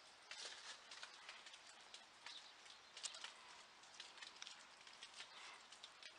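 Faint, irregular soft ticks and rustling, quiet overall, with no steady tone.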